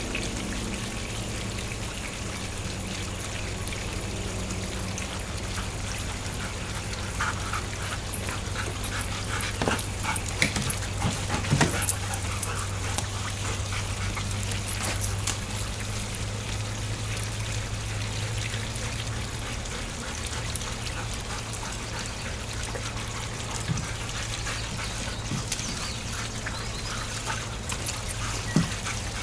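Dogs moving and splashing in a kiddie pool while water trickles, with a cluster of sharper splashes or knocks about ten to twelve seconds in.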